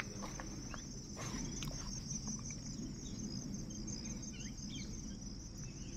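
Insects trilling steadily at a high pitch in an open field, over a low rumble, with a few faint short chirps in the middle.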